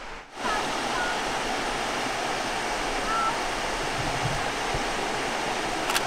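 Rocky Falls: creek water pouring steadily over a rhyolite shut-in into the pool below, an even rushing noise that sets in about half a second in.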